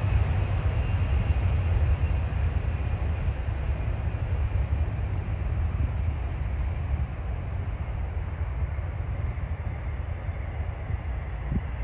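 Twin rear-engined business jet at takeoff power, a deep steady rumble of jet engine noise that slowly fades as the aircraft rolls away down the runway.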